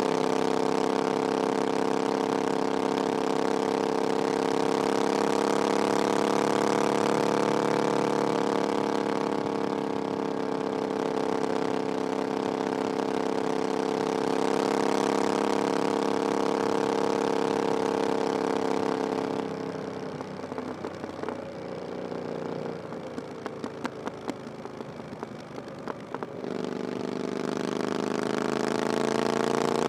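Triumph Bonneville Scrambler 900's 900cc parallel-twin engine running under way through an aftermarket exhaust, its note steady with slight rises and falls in pitch. About two-thirds of the way in, the exhaust note drops away for several seconds, with scattered pops and crackles, then comes back strongly near the end.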